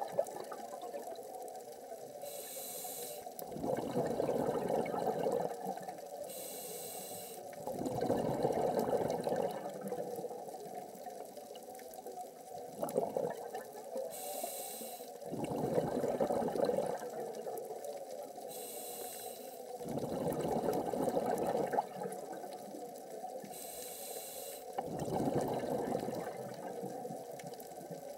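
A scuba diver breathing through a regulator underwater: a short hiss on each inhale, then a louder gurgling rush of exhaled bubbles, repeating about every four to five seconds.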